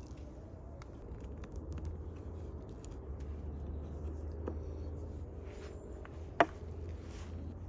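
Light scraping and faint clicks of a hand tool working cypress wood, with a sharper knock about six seconds in, over a low steady hum.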